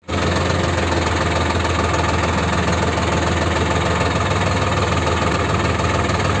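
Sonalika 50 hp 4WD tractor's diesel engine running steadily as the tractor drives slowly, heard close up from the driver's seat, with an even, low hum.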